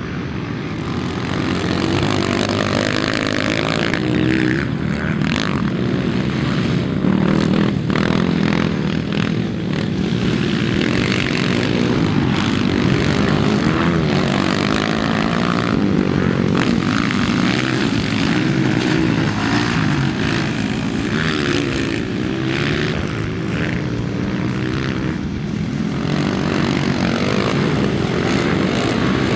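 Motocross dirt bike engines revving up and down as the bikes race around a muddy track, the pitch rising and falling continually through throttle changes and gear shifts.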